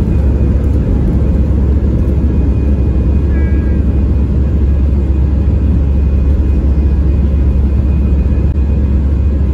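Jet airliner taking off, heard from inside the cabin: a loud, steady low rumble as the plane runs down the runway and lifts off.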